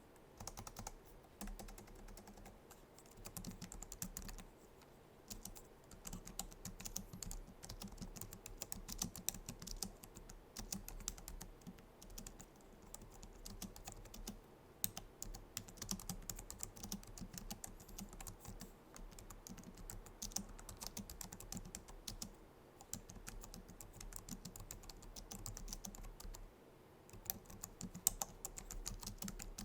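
Continuous typing on a Logitech MX Keys low-profile scissor-switch keyboard: a rapid stream of soft key clicks, with brief pauses between bursts.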